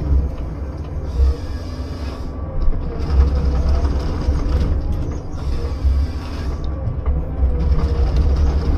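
Heavy machine running with a steady low rumble.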